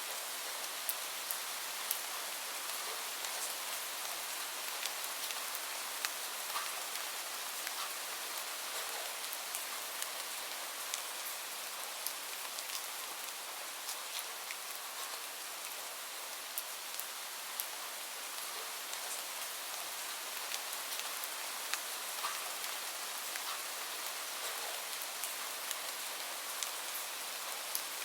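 Steady rain falling, a constant hiss with many sharp individual drops ticking on a surface.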